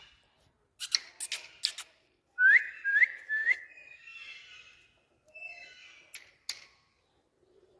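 A parrot whistling three short, quick notes that each rise in pitch. Sharp clicks come before the whistles, and softer chattering sounds and a couple of clicks follow.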